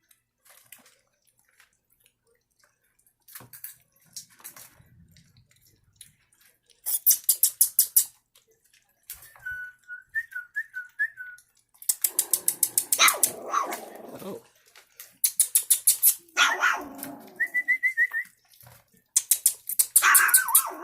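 Young puppies whining with thin, wavering high whines and yelping, among bursts of rapid smacking clicks.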